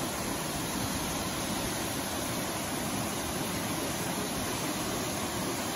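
Aguasabon Falls pouring into its gorge: a steady, unbroken rush of falling water.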